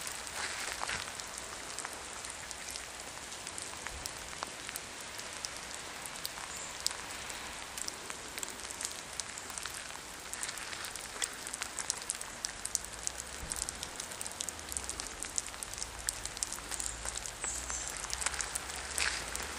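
Steady rain falling, with many small drops and drips ticking and tapping throughout.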